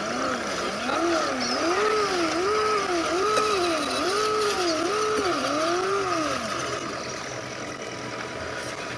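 Electric motor and gears of a scale RC crawler truck whining, the pitch rising and falling over and over, about every two-thirds of a second, as the throttle is worked, then stopping about six and a half seconds in.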